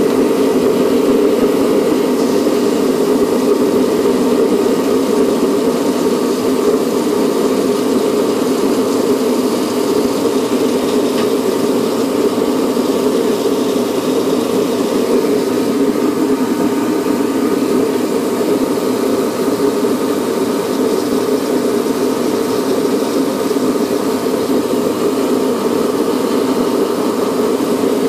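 Reddy Heater 55 kerosene forced-air heater running with a steady, even hum while its air-pump pressure is turned down from about 4 toward 3.4 on the gauge.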